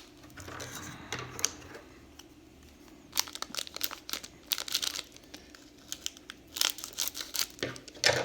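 Wrapper of a trading card pack crinkling and tearing as it is opened by hand, in two bursts of crackly rustling.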